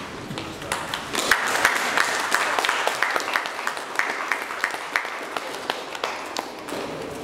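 Audience applauding: hand clapping swells about a second in and thins out near the end.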